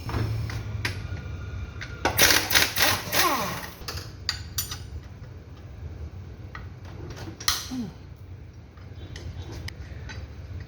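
Mechanic's tools working on an engine: a burst of rapid metallic clicking about two seconds in, then scattered clinks of metal on metal over a low steady hum.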